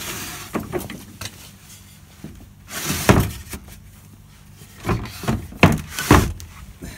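The interlocking wooden slats of a pull-out sliding bed being pushed back in: a short scrape of wood sliding on wood, then a run of wooden knocks and clatters as the moving slats drop and catch on the square edges of the fixed ones. The loudest clatter comes about three seconds in, with more knocks near the end.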